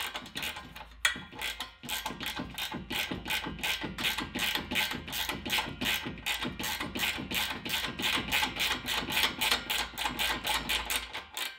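Ratcheting spanner clicking in quick, even strokes, about five a second, as it runs down a nut on the air suspension reservoir's mounting bracket.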